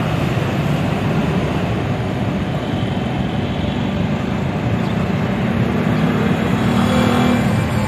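Steady city road traffic: vehicle engines and tyres running, with an engine hum coming up about five seconds in.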